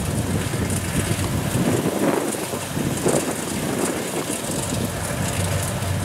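Kubota DC60 combine harvester running steadily under load as it drives forward cutting standing rice. Its diesel engine hums at a constant pitch under the noise of the machine.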